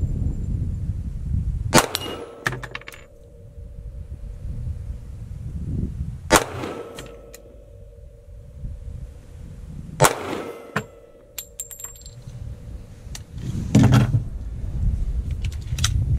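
Three slow, aimed shots from a .45 ACP pistol, about four seconds apart, each followed by a clang from a steel plate target hung on chains that rings on steadily for a few seconds: each shot is a hit.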